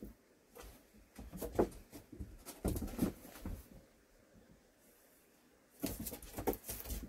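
Kittens scuffling and wrestling on the floor, their paws patting and scratching in several short bursts with quiet gaps between.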